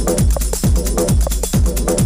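Background electronic dance music with a steady kick-drum beat, a little over two beats a second, and ticking hi-hats.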